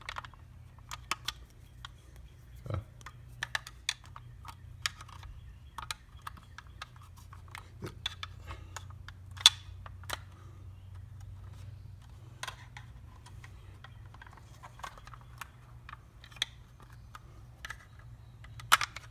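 Scattered small clicks and scrapes of a small flathead screwdriver working against the plastic retaining tabs of an overhead console housing as it is pried apart. There is one sharp, loud click about halfway through, over a faint steady low hum.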